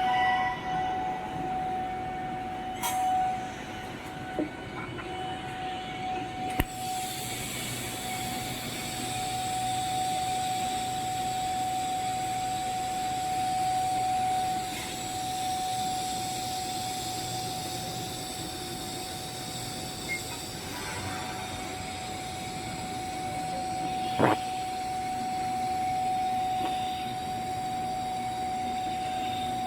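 TIG welding arc: a steady hiss that switches on with a click about six seconds in and runs on, over a constant steady tone, with one short sharp click later on.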